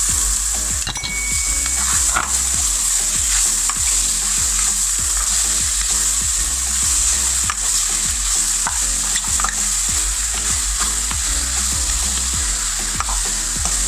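Chicken pieces frying in hot olive oil with onions and whole spices, a steady loud sizzle, with a utensil stirring and knocking against the pot every so often.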